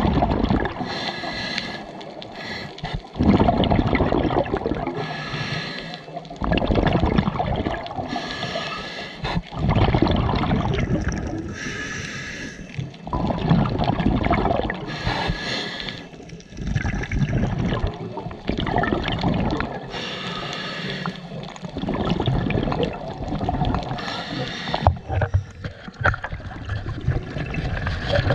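Underwater breathing through a scuba regulator: a short hiss on each inhale alternating with a longer rumbling gush of exhaled bubbles, one breath every three to four seconds.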